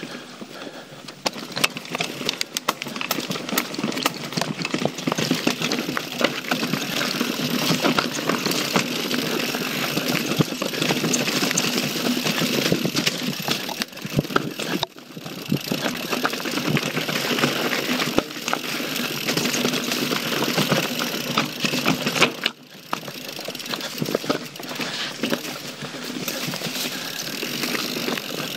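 YT Jeffsy mountain bike ridden fast down dirt singletrack, heard from a body-mounted action camera: a steady rush of tyre and wind noise over the microphone, full of small rattles and clicks from the bike over roots and bumps. The noise briefly drops away twice, about halfway through and again later.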